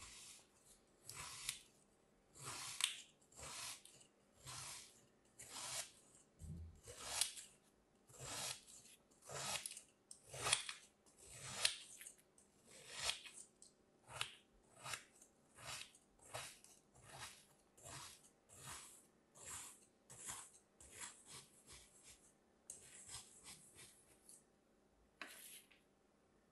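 A thin metal blade cutting through packed kinetic sand, a short gritty scrape with each stroke, about one to two a second. The strokes turn lighter and quicker after about twenty seconds as the grid of cuts is finished.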